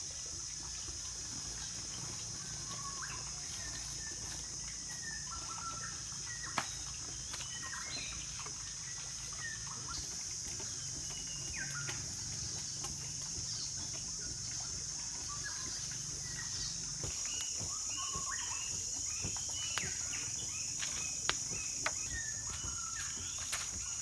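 Outdoor forest ambience: a steady high-pitched insect drone with scattered short bird chirps throughout, over a low steady rumble and a few faint clicks.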